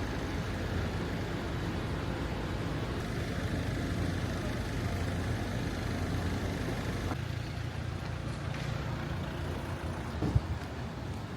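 Car on the road: a steady low rumble of engine and tyres. The sound shifts about seven seconds in, and a short thump comes near the end.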